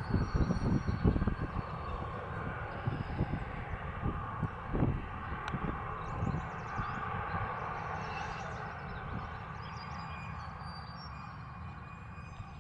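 Jet airliner engine roar slowly fading as the aircraft moves away, with wind buffeting the microphone in the first second or two.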